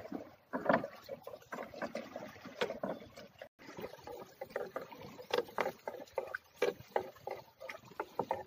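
Water splashing, with many irregular short knocks and clatters from handling a fishing net on the water.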